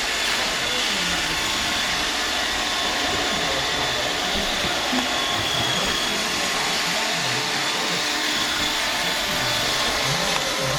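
Roomba robot vacuum running as it cleans: a steady whirring hiss with a thin, constant high whine.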